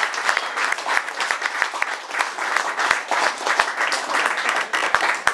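Audience applauding: dense, steady clapping that falls away at the very end.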